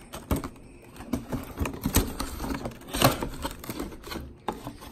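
Cardboard box being handled and opened by hand: a string of taps, knocks, scrapes and rustles, the loudest about three seconds in.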